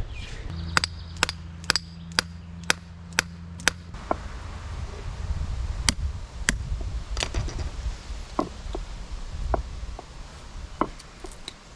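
Hammer blows knocking the broken stub of the old wooden handle out of the eye of a sledgehammer head: a quick run of seven sharp strikes about half a second apart, then a handful of slower, irregular strikes. A low steady hum runs under the first four seconds.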